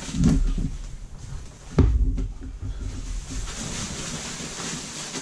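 Unboxing handling noise as a tackle organiser bag is freed from its white packaging wrap: two dull knocks, the louder one just under two seconds in, then a steady crinkling and rustling of the wrapping.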